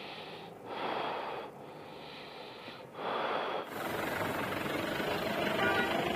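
A person breathing out hard three times in short puffs, then a sudden change to steady outdoor background noise.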